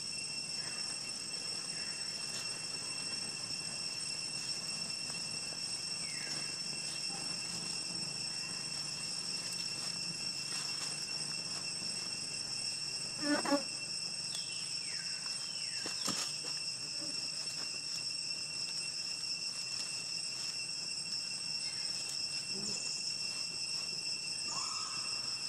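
Steady insect chorus, a high unwavering drone. About halfway through, a brief pitched call rises above it, with a few faint falling chirps before and after.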